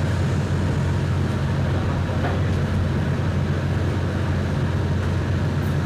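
Large diesel generator engine running steadily: a constant low drone with an even hum.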